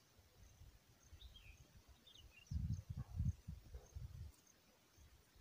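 Low wind rumble buffeting the microphone in uneven gusts, strongest about halfway through, with a few faint bird chirps.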